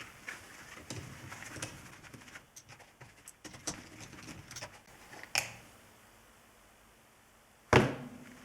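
Scattered light metallic clicks and clinks of hand tools, a socket and ratchet being worked on the CA18DET's spark plugs, then a short quiet and one sharp knock near the end.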